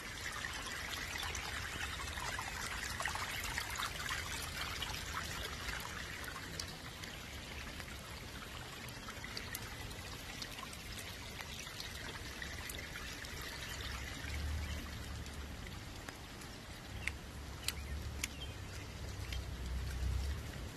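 Floodwater running and trickling across a waterlogged yard, a steady rush that is fuller in the first few seconds. A low rumble on the microphone comes in the last several seconds.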